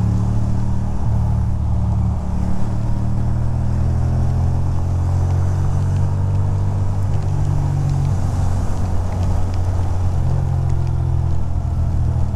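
2006 Ducati Monster 620's air-cooled L-twin engine running steadily at highway cruising speed, its pitch shifting slightly a few times. Underneath is a steady rush of wind and wet-road noise.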